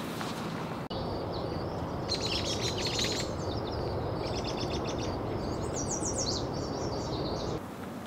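Small songbirds chirping and trilling over a steady low background rumble: a quick cluster of chirps, then a longer run of fast, falling notes that stops abruptly near the end.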